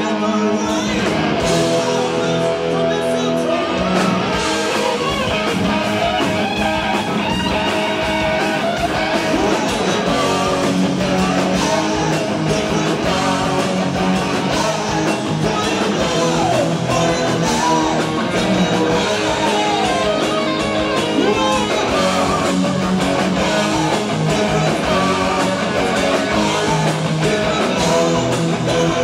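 Live hard rock band playing through a club PA: distorted electric guitars with bending lead lines over bass, drum kit and keyboard, with a male lead vocal.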